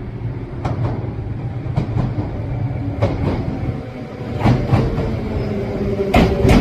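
Fukui Railway electric train running on the track, its wheels knocking in pairs as the bogies cross rail joints, about four such pairs over a steady low rumble. A steady hum joins in during the second half.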